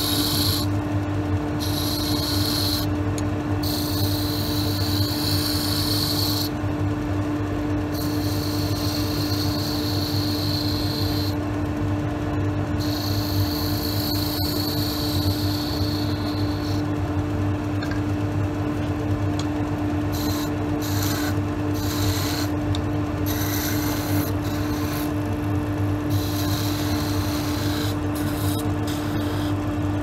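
Wood lathe running with a steady motor hum while a hand-held turning tool cuts the spinning wooden drawer knob, the cutting hiss coming and going in stretches as the tool is pressed in and lifted off.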